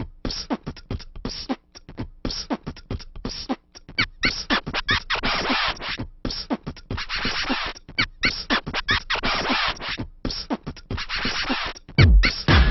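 Electronic dance-style music with a clicking, choppy percussive beat. A heavy kick drum comes in near the end.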